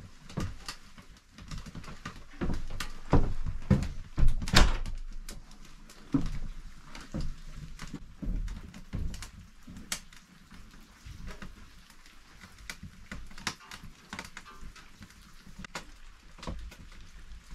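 Irregular knocks, thuds and clicks of handling around a cast iron wood stove in a small log room, loudest about three to five seconds in.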